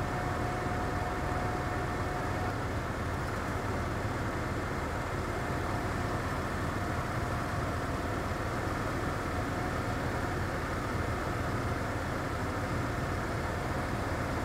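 1995 Ford F-150's 5.0-litre V8 idling steadily in park or neutral.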